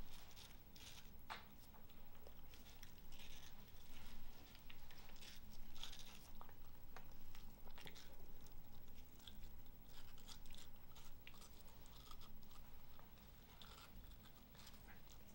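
Papillon dog biting into and chewing a slice of watermelon: a continuous run of short, irregular bites and chews.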